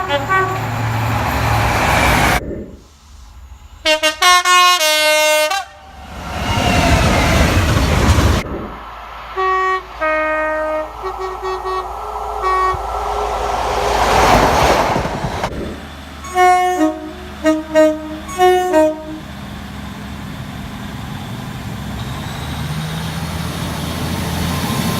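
Train horns sounding in short blasts, each switching between notes, in several recordings cut together: about four seconds in, around ten to twelve seconds in, and a run of short blasts around sixteen to nineteen seconds in. Between them comes the steady rushing noise of trains passing.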